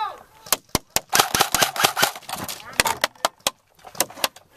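Airsoft guns firing: irregular sharp snaps, some coming in quick runs of several shots.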